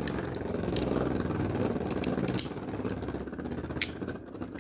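Two Beyblade Burst spinning tops whirring steadily as their tips grind across a plastic stadium floor, with a few sharp clacks as they strike each other, the loudest near the end.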